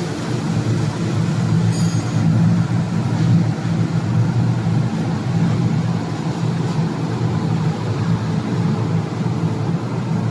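Wood hammer mill running steadily, a continuous low mechanical drone as it crushes wood scraps.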